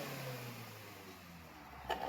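Suzuki Futura's engine with an aftermarket SUOS 'ngorok' exhaust settling back to a low, quiet idle after a rev, its pitch easing down. A short click comes near the end.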